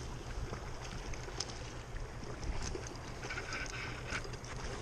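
Wind rumbling on the microphone over the wash of a shallow stream, with scattered light clicks and a brief higher tone about three seconds in.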